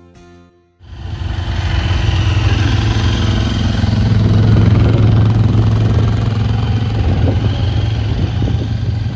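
Motorcycle engine running at a steady pace while riding, with a loud rushing noise over it. It cuts in suddenly about a second in, after the tail of some music.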